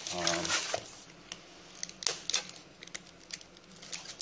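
A blade cutting through foam board on a cutting mat, giving a scattered run of sharp clicks and crackles.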